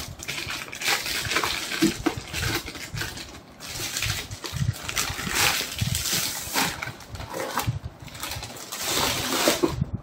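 Clear polythene bag rustling and crinkling as a wrapped instant water heater is handled and pulled out of it, in irregular crackly bursts throughout.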